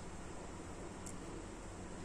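Steady background hiss with one faint, brief high click about a second in.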